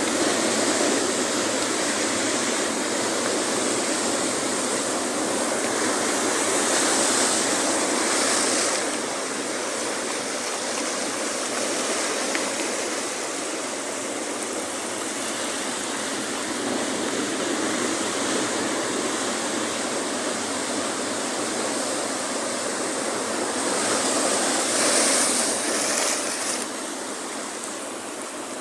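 Ocean surf breaking and white water washing over and around a rocky reef shelf: a steady rushing of water that swells louder twice, as waves surge in, and eases near the end.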